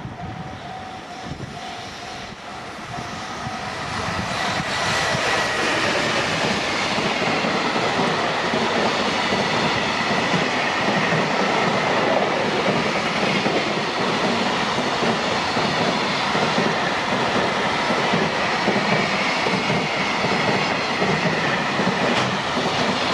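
A level-crossing warning bell rings in a quick repeating pattern for the first few seconds. Then a JR Freight train passes close by, its wheels rumbling and clacking loudly, with a steady high-pitched tone running through the noise to the end.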